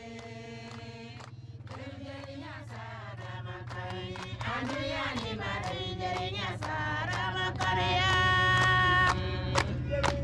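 A group of women singing together, growing louder as it goes, with sharp hand claps coming in near the end.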